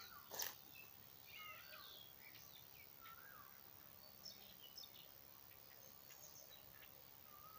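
Faint birdsong, scattered short chirps and warbled whistles from several birds, with one sharp click or knock about half a second in.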